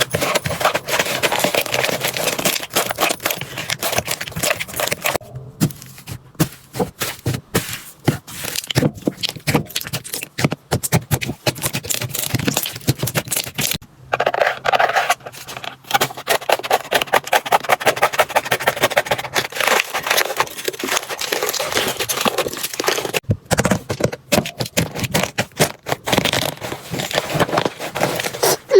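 Slime being squeezed and pressed by hands, a dense run of small wet clicks, crackles and pops with a few brief breaks.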